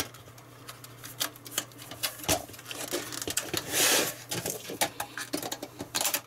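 Irregular clicks and knocks of plastic and sheet metal as a satellite receiver's front-panel circuit board is prised free of its metal chassis, with a longer scrape about four seconds in.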